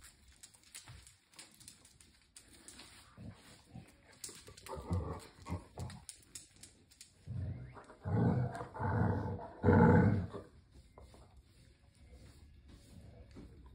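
Basset hounds growling in play: a few short growls about five seconds in, then a longer run of loud growls from about eight to ten seconds in.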